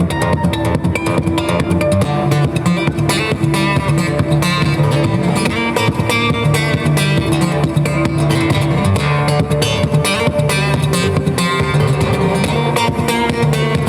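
Live music performance led by guitar, playing steadily with a bass line underneath.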